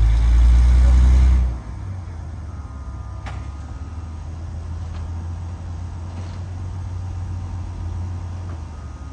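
Brill interurban car No. 120 and the coupled Whitcomb diesel locomotive making a loud low rumble that drops off suddenly about a second and a half in. After that comes a steady low running hum with a few light clicks.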